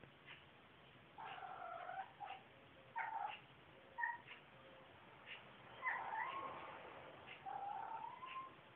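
Domestic cat giving a string of about six creaky, drawn-out meows, some short and some long, the last one rising in pitch: its morning meow, which sounds like a squeaky door.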